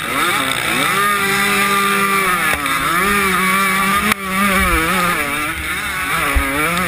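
125 cc two-stroke motocross engine under race throttle, heard from the rider's helmet camera: it revs up hard out of a turn, holds high revs, then cuts out for a moment about four seconds in before coming back with quick rises and falls in pitch. A couple of dull low thumps come in the second half.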